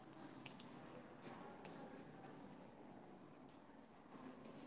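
Faint scratching and tapping of chalk on a blackboard as a word is written: a string of short, high scratches with small gaps between strokes.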